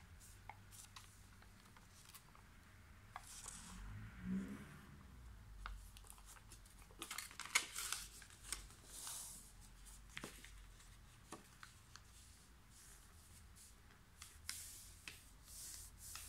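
Square sheet of origami paper being folded and creased by hand: scattered crinkles, short swishes and sharp little clicks of stiff paper, the loudest a little past halfway.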